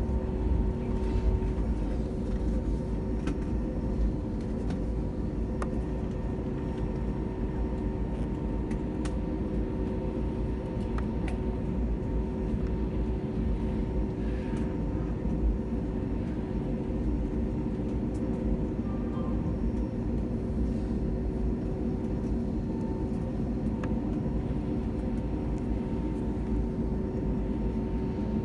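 Cabin noise inside an Airbus A320neo taxiing after landing: a steady low rumble with a constant hum from the idling engines, and a few light clicks.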